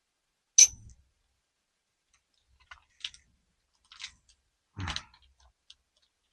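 Parts of a motorcycle handlebar riser kit being handled and fitted: a sharp click about half a second in, a few light clicks, then a duller knock near the end.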